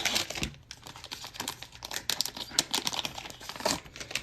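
Panini Chronicles basketball trading cards being flicked through by hand: a run of light, irregular clicks of card stock sliding and tapping against card stock.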